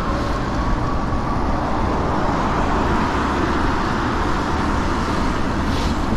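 Steady rush of road noise from a moving ebike on wet pavement: wind on the microphone and tyre hiss, with car traffic around. A brief rise in hiss comes near the end.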